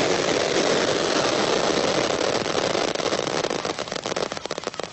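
Fireworks going off: a dense steady hissing rush, then a rapid run of crackling pops from about three seconds in.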